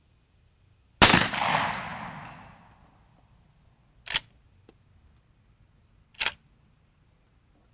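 A single gunshot from a Rossi R92 lever-action rifle firing a .45 Colt handload, with a long fading echo. Two short, sharp clacks follow about two seconds apart.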